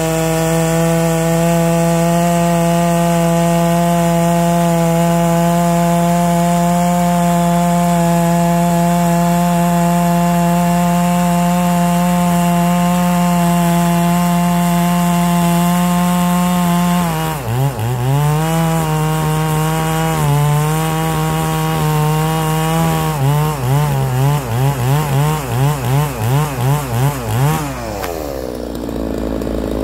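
Large two-stroke chainsaw with a 36-inch bar at full throttle, cutting through a big log with a steady engine note under load. About 17 seconds in the pitch dips and wavers, then pulses about three times a second, and near the end the cut breaks through and the engine note drops away.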